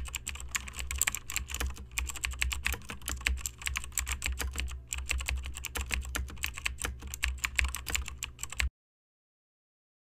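Computer keyboard typing: fast, continuous, irregular key clicks over a low hum, stopping suddenly near the end.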